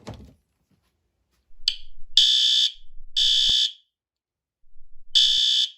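Fire alarm going off in loud, high-pitched beeps, each about half a second long, separated by gaps of a second or so. It starts about two seconds in.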